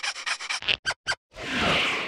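Cartoon larva's fast breathy panting giggle, a rapid run of short strokes that breaks off about half a second in. A few short sounds follow, then a swelling whoosh sound effect near the end.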